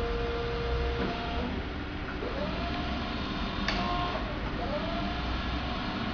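Caterpillar forklift moving slowly. Its drive motor whines and rises in pitch twice as the truck gathers speed, with a steady tone that cuts off about a second in and a sharp click near the middle.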